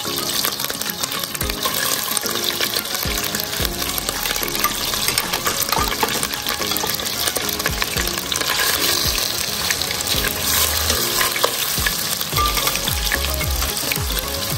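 Shrimp frying in melted butter and olive oil in a pot: a steady sizzle with scattered small pops and crackles.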